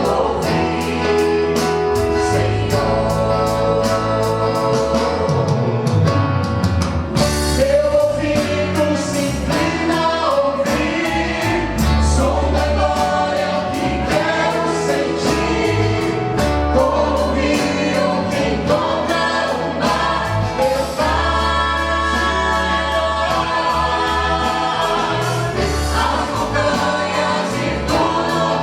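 Vocal group singing a gospel song in close harmony over a backing track with bass and a steady beat.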